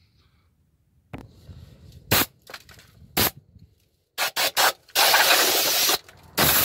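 Aerosol spray can: after a couple of sharp knocks, three short squirts come about four seconds in, then a spray of about a second, then another longer spray starting near the end.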